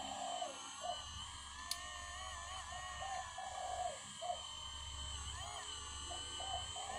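Hydraulic pump of a radio-controlled scale Kobelco SK200 excavator whining steadily. Its pitch wavers up and down as the boom and bucket move under load.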